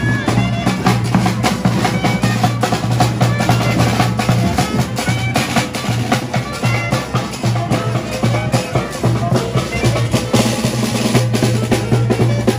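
Chirimía street band playing live: a big double-headed bass drum and a snare drum keep a fast, steady beat under a melody from saxophone and steady low notes.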